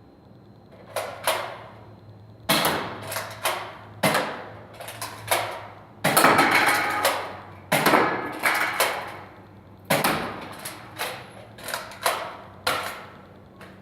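A run of sharp plastic clacks and knocks: a Nerf Strongarm blaster being primed and fired again and again, with foam darts striking empty drink cans and the cans clattering over. The clatter is longest and loudest around the middle.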